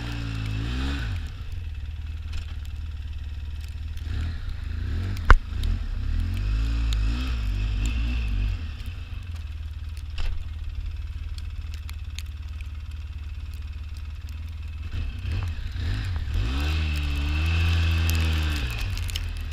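A small off-road vehicle's engine running and revving up and easing off three times as it drives. A single sharp knock about five seconds in is the loudest sound.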